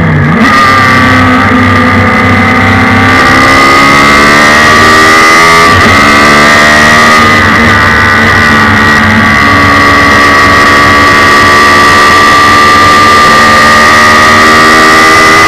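Onboard sound of a Suzuki Hayabusa inline-four motorcycle engine powering a race car, loud under hard acceleration. The pitch climbs steadily through a gear, breaks at a shift about six seconds in, then holds high and pulls on steadily.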